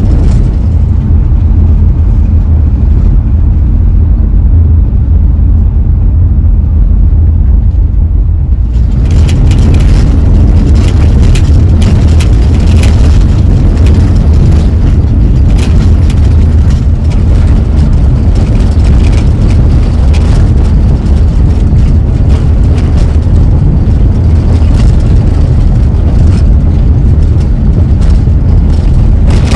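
Minivan driving: a loud, steady low road-and-engine rumble, with a denser crackle and rattle joining in from about nine seconds in.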